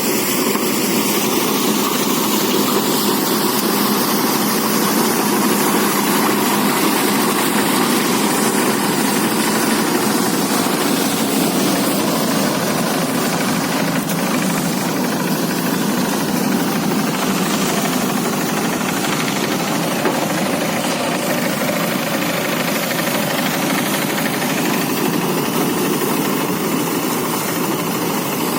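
Engine-driven rice threshing machine running steadily, making a dense, unbroken mechanical noise.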